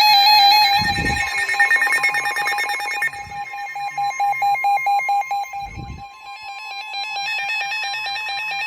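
Several NOAA weather radios sounding their alert alarms together: fast, repeating electronic beeping and warbling over steady warning tones, as they receive a severe thunderstorm warning. Two dull low thumps, about a second in and again near the six-second mark.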